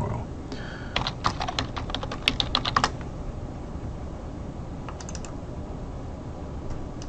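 Computer keyboard typing: a quick run of about a dozen keystrokes over two seconds, then a few more single clicks about five seconds in.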